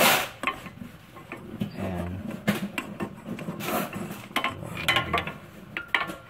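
Steel hand tools clinking and tapping against a car's suspension link and bolts: a string of irregular sharp metallic clicks, after a brief hiss at the very start.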